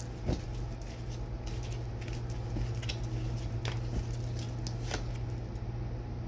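Tarot cards being shuffled and handled, with scattered soft snaps and flicks of the cards, over a steady low hum.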